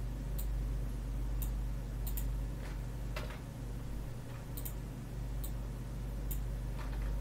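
Computer mouse and keyboard clicks, about eight of them at irregular intervals, over a steady low electrical hum.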